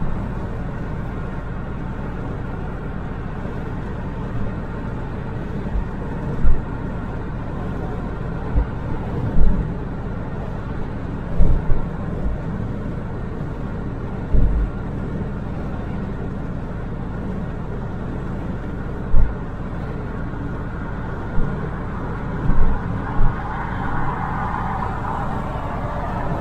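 Car driving at expressway speed, heard from inside the cabin: steady tyre and road noise with a dozen or so short, irregular low thumps. A louder hiss comes in over the last few seconds.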